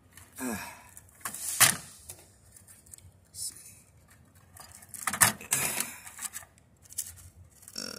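Wire cutters snipping through the wires on a TV's circuit board: a few sharp clicks as the jaws cut, two of them louder, with rustling and scraping of wires being handled in between.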